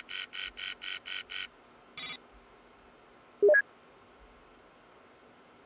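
Computer messaging-interface sound effects. A run of rapid electronic beeps, about four a second, stops about a second and a half in. A short bright chirp follows as a new message pops up, then a brief rising blip.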